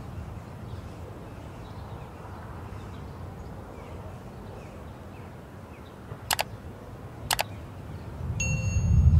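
Two sharp mouse-click sound effects about a second apart, then a bright bell-like notification ding: the sound of an on-screen subscribe-and-bell animation. In the last second a louder low rumble rises as milk is poured from a jug into the hot roux in the pan.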